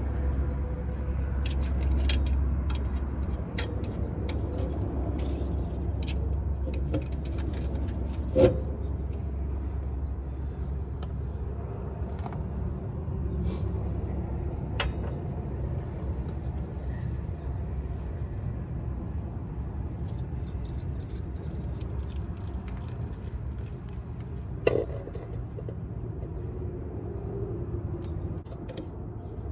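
Steady low rumble of a heavy truck's diesel engine idling, with scattered light metallic clinks of work on the suspension and two sharp knocks, one about eight seconds in and one later on.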